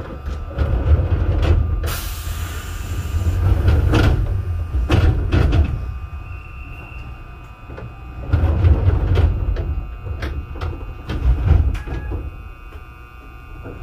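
Stationary electric train standing at a platform: a burst of air hissing about two seconds in, scattered knocks and clicks, and low rumbling that swells and fades several times, over a faint steady electrical whine.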